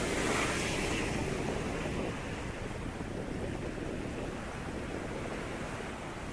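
Sea waves breaking over a flat rock shelf and washing across a rock pool: a splash of surf that is loudest in the first second or two, then a steady wash of foaming water over the rock.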